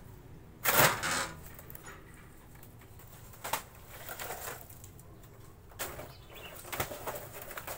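Dry wood veneer sheets being handled and cut on a hand-operated lever-arm cutter: a loud crackling rustle of the thin sheets about a second in, then several shorter rustles and snaps.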